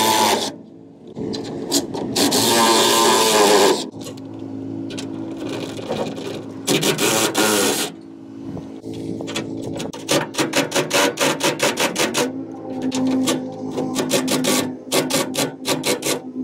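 Socket ratchet working a hitch mounting bolt on the truck frame: quick runs of sharp ratchet clicks, about five or six a second, after stretches of harsher grinding noise from the wrench and bolt.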